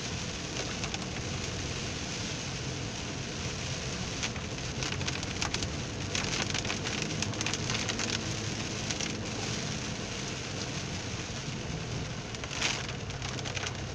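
Heavy rain pattering on a car's windshield and roof, heard from inside the moving car, with many small drop ticks. A steady low hum of engine and tyres on the wet road runs beneath it, and there is one sharper tap near the end.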